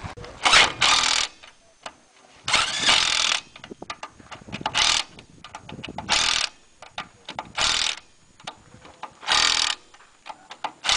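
Impact wrench hammering in about eight short bursts, one after another, as it runs the lug nuts on an off-road race car's wheel.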